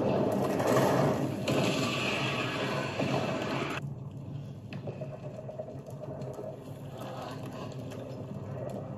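Dense rumbling and crashing sound effects from a TV drama's soundtrack, loud for about four seconds, then cutting off sharply to quieter scraping and debris sounds.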